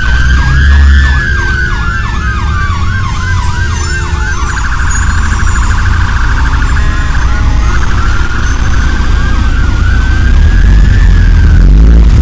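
Fire engine siren approaching, moving between a fast yelp and a slow rising and falling wail, with a rapid warble about halfway through, over a deep rumble.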